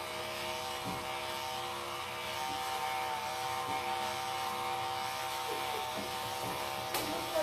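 Electric dog-grooming clippers running with a steady buzz while trimming a Bichon Frise's coat, with one sharp click near the end.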